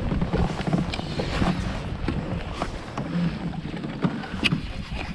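Wind buffeting the microphone over water slapping against a kayak hull, with a few sharp clicks and knocks from handling the baitcasting rod and reel. The loudest click comes about four and a half seconds in.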